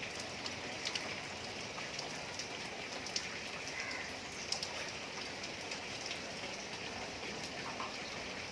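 Steady rain falling: an even hiss with scattered, sharper drop hits.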